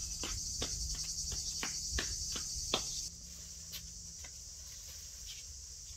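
A steady, high-pitched insect chorus trilling, which drops in level about halfway through. A run of light, sharp snaps or ticks, a few a second, sounds over it in the first half.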